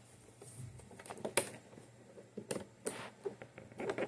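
A few light, separate clicks and taps as iMac parts are handled during reassembly.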